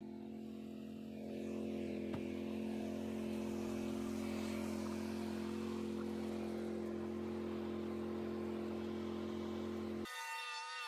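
Zero-turn riding mower engine running at a steady speed, growing a little louder about a second in; it cuts off abruptly near the end.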